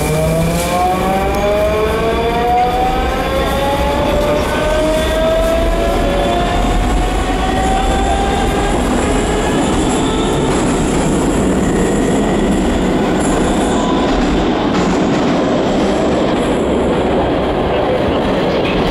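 Moscow Metro train heard from inside the carriage: the traction motors whine in several tones, rising in pitch as the train accelerates over the first several seconds. Then comes a steady, loud rumble of wheels and running gear on the track.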